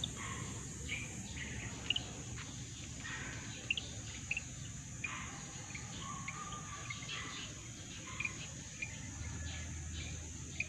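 Outdoor ambience: a steady, high insect trilling, like crickets, with short bird chirps scattered throughout.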